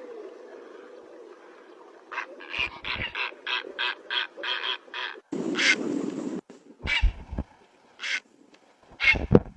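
Calls of the bird known as the rakhiwi (purple or grey bird). A run of short harsh notes begins about two seconds in, about two a second. A longer harsh call comes about five and a half seconds in, then a few single calls near the end, the last two the loudest.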